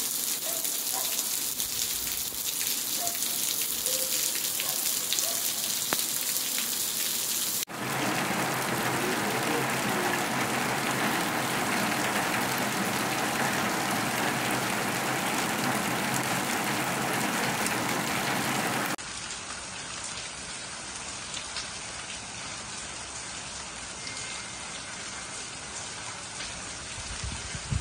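Heavy rain pouring down on roofs and pavement, a steady hiss of falling water. It comes in three separate recordings joined by abrupt cuts about 8 and 19 seconds in; the middle one is the loudest.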